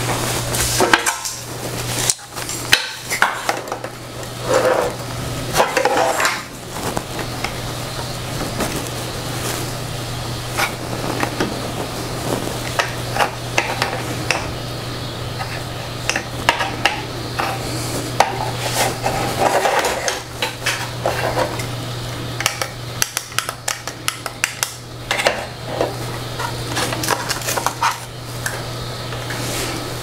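Irregular clicks, knocks and clatter of hard plastic and metal parts being handled and fitted on a DIY direct-to-garment printer, over a steady low hum.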